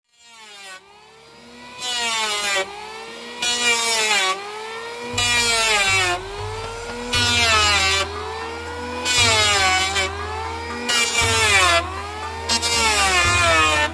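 Electric hand planer shaving the wooden planks of a boat hull in repeated passes. The motor's whine dips in pitch and recovers as the blade bites, with a loud shaving hiss on each pass about every second or so.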